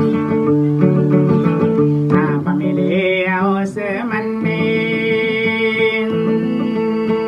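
A man singing while playing an acoustic guitar. His voice wavers and bends about two to four seconds in, then holds a long note over the guitar.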